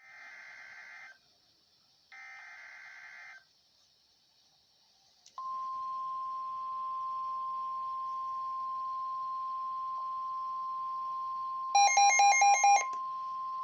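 NOAA Weather Radio Emergency Alert System activation: two short bursts of the SAME digital header data, each about a second long, then after a pause the steady 1050 Hz warning alarm tone that signals a severe thunderstorm warning. Near the end, a louder run of about six rapid beeps sounds over the tone for about a second.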